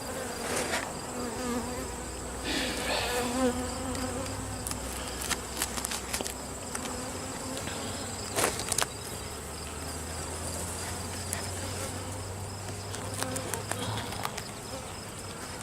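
Many honey bees buzzing around an open hive, a steady wavering hum. A few sharp clicks stand out, the loudest about eight and a half seconds in.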